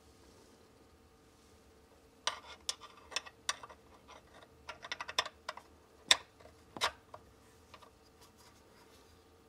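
A wrench clicking and clacking against the lug of an InSinkErator garbage disposal's mounting ring as the ring is worked around on the sink mount. The sharp, irregular clicks start about two seconds in, and the loudest two come near the end.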